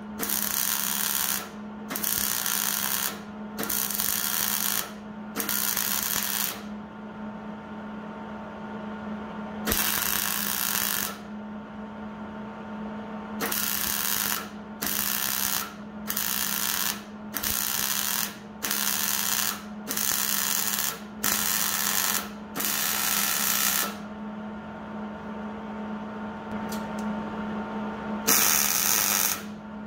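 MIG welder laying tack welds on sheet-steel cab panels: about fourteen separate bursts of about a second each, mostly in quick succession with a couple of longer pauses, over a steady low hum.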